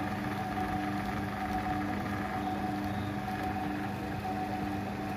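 Amma wet grinder's electric motor running and turning the large drum pulley through its V-belt: a steady hum with a few steady tones. It runs with no noise after its new bearing and belt were fitted.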